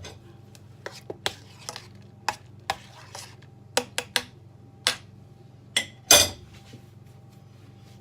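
Kitchenware clinking and knocking: a dozen or so sharp taps and clicks of utensils, pot and dishes being handled, the loudest a little after six seconds with a brief ring.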